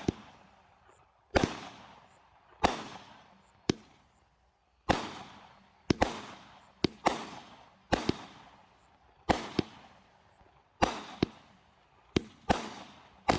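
Megabanger 'American Patriot' 16-shot, 200-gram consumer firework cake firing shot after shot from its tubes. There is roughly one sharp bang a second, sometimes two in quick succession, each trailing off over about a second.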